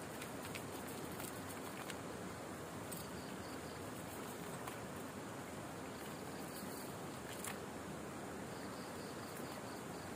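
Night insects calling: a cricket chirping in trains of short high pulses, about four a second, over a steady hiss, with a few faint clicks.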